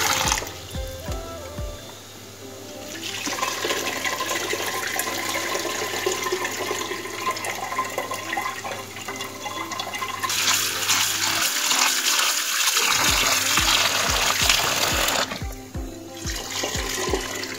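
Kitchen tap running into a steel bowl of soaked lentils, water splashing as the lentils are rinsed to wash off their husks; the flow is loudest from about ten to fifteen seconds in. Background music with a steady beat plays underneath.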